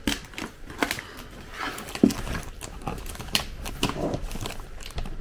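Cardboard shipping box and its inner paper and plastic packaging being handled: irregular knocks, scrapes and crinkles, with a sharp knock about two seconds in.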